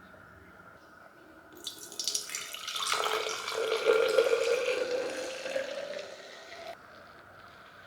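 Water running from a tap for about five seconds, starting about a second and a half in and shutting off abruptly near the end.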